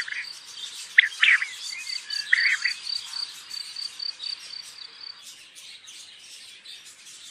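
Birds chirping, with a few short, loud calls in the first three seconds, over a steady, high, pulsing insect trill, typical of a cricket, that stops about five seconds in.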